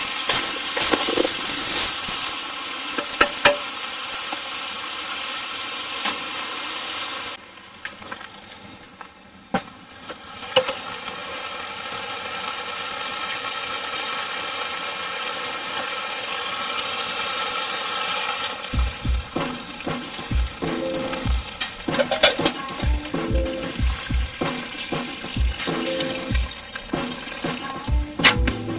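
Food sizzling and hissing as it cooks over a campfire, under background music. The sizzle drops away sharply about a quarter of the way in, then builds back. Near the last third the music brings in a steady beat with low bass notes.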